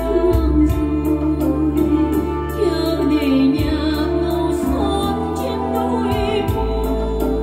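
A Vietnamese wartime love song (tình khúc chinh chiến) playing back from a tape on a Panasonic AG-7150 S-VHS deck: a singer with vibrato over instrumental accompaniment and held bass notes.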